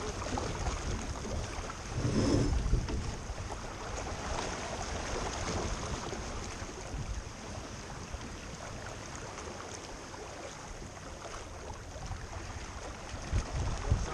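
Water rushing and splashing along a small boat's hull as it moves, with wind buffeting the microphone. The rumble swells louder in a gust about two seconds in and again near the end.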